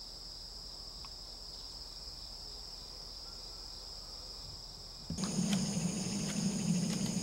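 Insects chirping in a steady high-pitched drone. About five seconds in, the sound changes abruptly to a different, higher insect chorus joined by a low hum and scattered light clicks.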